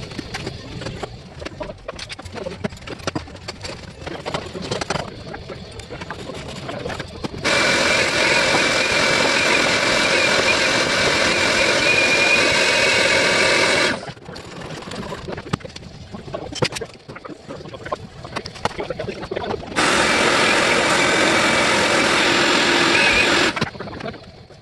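Vacuum cleaner switched on and off twice, running steadily for about six seconds and then about four, picking up small debris from the car body. Scattered clicks and knocks come before and between the runs.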